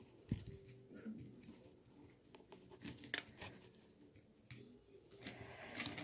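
Faint scratching and a few light clicks as a small brush dabs white paint onto the scales of a pine cone and the cone is handled, with a sharper click about a third of a second in and a longer brushing scrape near the end.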